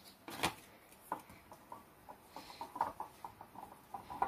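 Wire whisk clinking and scraping against a bowl while stirring powdered-sugar glaze, light clinks about three to four a second after one louder knock about half a second in.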